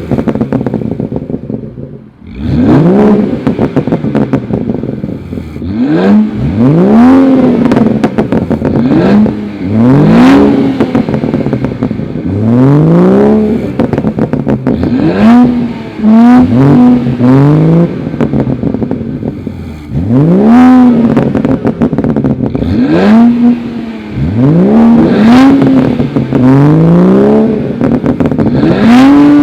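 A performance car's turbocharged 3.0-litre six-cylinder through an aftermarket exhaust, accelerating hard again and again: the revs climb and drop back at each shift or lift, many times over, with a brief lull about two seconds in.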